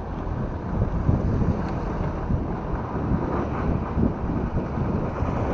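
Wind buffeting the microphone of a bicycle-mounted action camera while riding along a road, an uneven low rumble.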